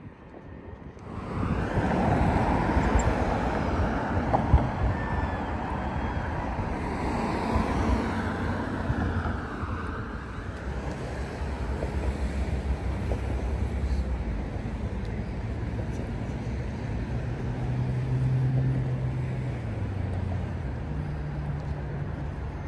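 Vehicle noise: a steady rushing with a low hum, coming up suddenly about a second in.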